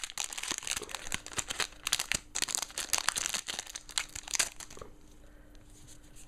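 Foil booster pack of Yu-Gi-Oh! cards being torn open and crinkled by hand. The crackling runs irregularly for about five seconds, then dies down near the end.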